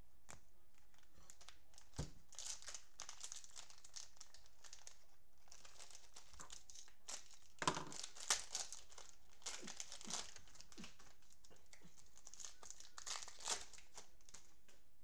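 Cellophane wrappers of football trading-card cello packs being torn open and crinkled by hand, in several bursts with a few sharp snaps.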